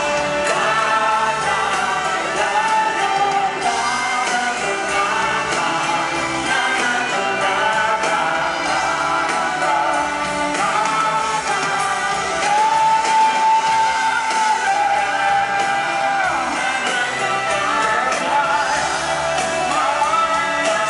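A live band playing with a singer, heard from the stands of a large arena. About twelve seconds in, a long note is held for a couple of seconds.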